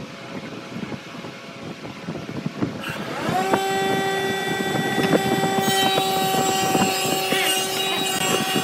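An electric motor spins up about three seconds in and then runs with a steady whine. Scattered light knocks come from wooden dowels being handled on the bench.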